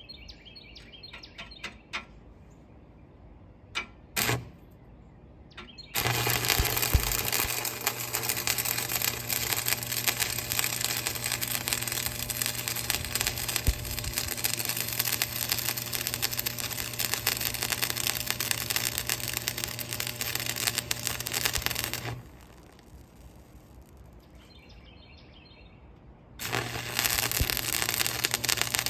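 Stick welder arc crackling steadily as a bead is run into the ground-out, worn weld seam along the backhoe bucket's cutting edge. A brief strike comes about four seconds in, then a long run of about sixteen seconds that stops, and the arc is struck again near the end.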